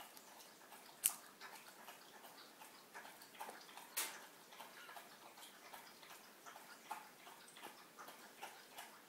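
Small precision screwdriver loosening the post screws on a Chiwawa rebuildable atomizer deck: faint, scattered metallic clicks and ticks. The sharpest click comes about a second in, and another comes about four seconds in.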